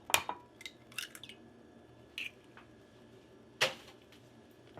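An egg being cracked and opened into a bowl: a few sharp taps and knocks of shell against the bowl, with small wet sounds of the egg dropping in.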